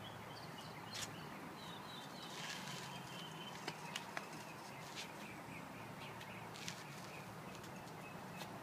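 Outdoor ambience with small birds chirping in short, repeated calls over a faint steady hum, with a few light clicks.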